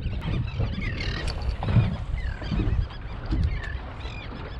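Seabirds calling repeatedly over open water, many short rising and falling cries overlapping, over a steady low rumble of wind on the microphone.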